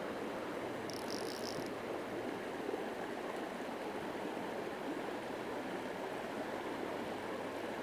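Steady rush of a small shallow stream flowing over gravel riffles.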